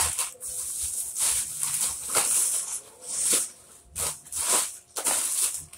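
Plastic snack wrappers crinkling as packets are handled and sorted, in several short rustling bursts.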